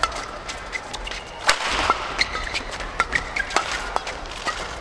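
Fast men's doubles badminton rally: rackets striking the shuttlecock in quick succession, a sharp hit about every half second, the loudest about one and a half seconds in. Short squeaks of shoes on the court floor come between the hits, over a haze of arena crowd noise.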